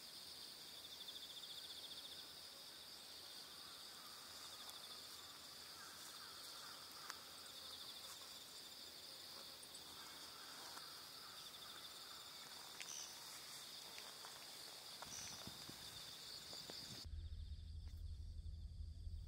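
Insects chirring steadily in a faint, high, even band. Near the end it cuts abruptly to a low, steady rumble.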